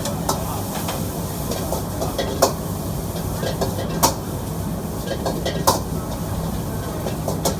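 Wok cooking over a strong gas burner: a steady roar and hiss, with a metal spatula clanking sharply against the wok several times.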